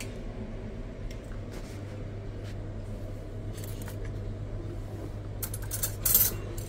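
Steady low hum with scattered light clicks, and a brief clatter of small hard objects about six seconds in.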